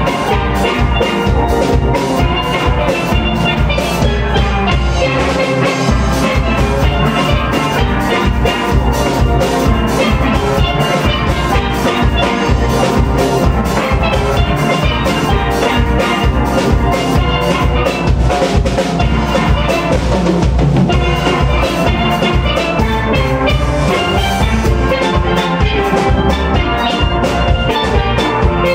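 Steel band playing a tune on steel pans, many quick struck notes ringing together over a steady percussive beat.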